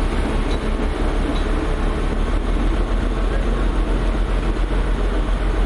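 Darjeeling Himalayan Railway toy train coaches rolling past at close range: a loud, steady running noise of the narrow-gauge train with a strong low rumble.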